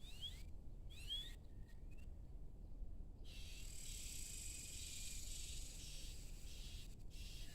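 Evening insect chorus with a steady high-pitched buzz, crickets or similar, starting about three seconds in. Before that, a bird gives a few short, quick rising chirps.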